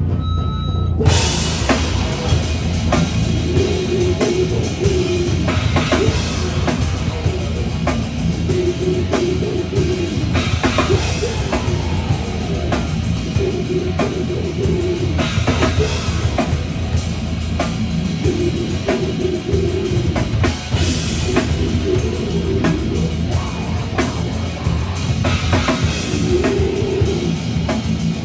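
A heavy metal band playing live: distorted electric guitars, bass and a drum kit with rapid drumming. The full band, high end included, comes in about a second in.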